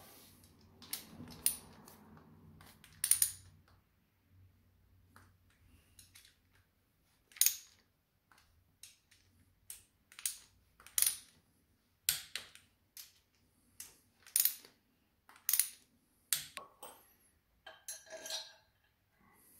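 Sharp metallic clicks and clinks of hand tools (a ratchet screwdriver and a small thumbwheel ratchet) working the steel bolts of a motorcycle engine's side cover. They come singly, about one every second, with a short metallic rattle near the end.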